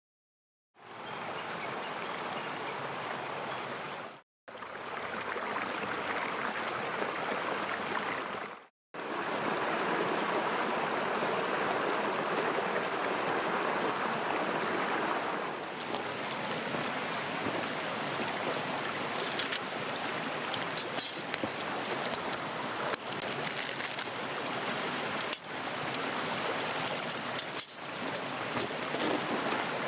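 River water rushing steadily, breaking off twice for a moment early on; from about halfway, a scattering of light clicks sits over the flow.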